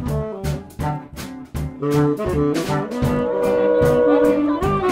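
Background jazz music with a horn melody over a drum beat; the horn holds one long note about three seconds in.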